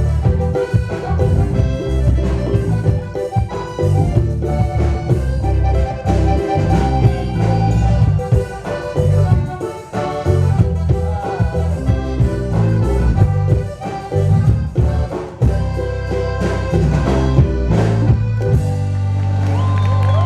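Instrumental music with a busy bass line; about nineteen seconds in, the bass settles into one long held note.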